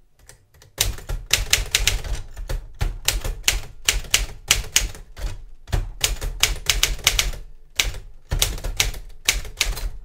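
Smith-Corona Silent-Super manual portable typewriter being typed on: runs of sharp key and typebar strikes against the platen, several a second, with short pauses between words.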